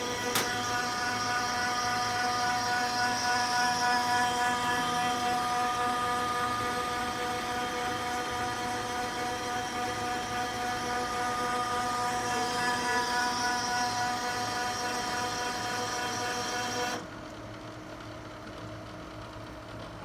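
OKI C931e printer running its startup cycle with a loud, steady whine made of several pitched tones over a hiss, a noise the owner finds abnormally loud. There is one click near the start, and the whine cuts off suddenly about 17 seconds in, leaving a quieter hum.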